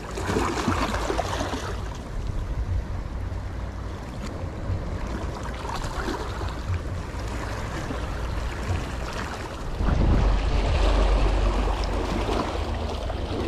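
Small waves lapping and splashing against shoreline rocks, a steady wash of water, with a louder low rumble for a couple of seconds about ten seconds in.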